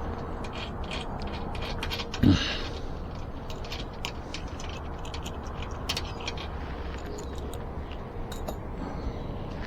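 Irregular metallic clicks and clinks of hand tools working on tight nuts on an ebike wheel, with a short grunt about two seconds in.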